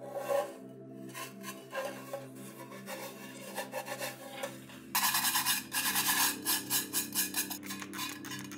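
Rusty metal mess tin being handled and rubbed with gloved hands, scratchy strokes over its rusted surface, turning into a louder, dense rasping scrape about five seconds in.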